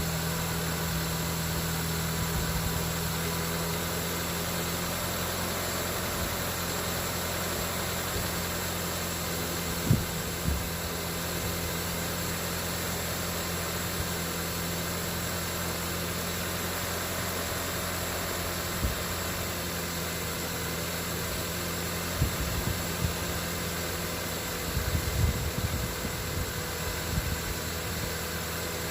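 Steady low mechanical hum, with a sharp knock about ten seconds in and a scatter of knocks and clatter in the last several seconds.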